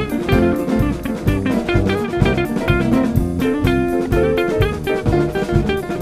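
Band playing an upbeat, jazzy instrumental on guitar, bass guitar and drum kit, with a steady drum beat.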